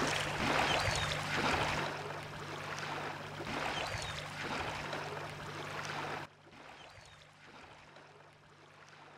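Rushing noise like running water that swells and eases, with a few short high chirps and a steady low hum underneath. It drops sharply in level about six seconds in.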